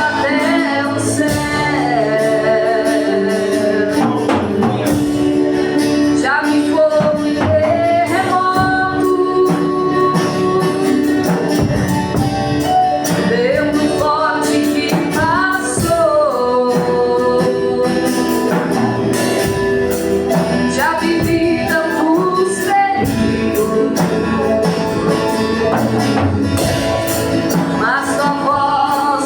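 A song sung by a female and a male voice, with instrumental backing.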